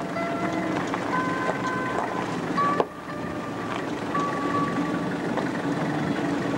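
A motor running steadily with a low hum and noise, with a few short, thin tones above it. There is a sharp click and a brief dip in the sound about three seconds in.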